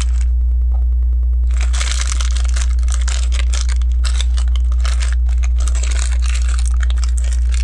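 Loose plastic LEGO pieces clicking and rattling as they are sifted by hand, starting about a second and a half in, over a steady low hum.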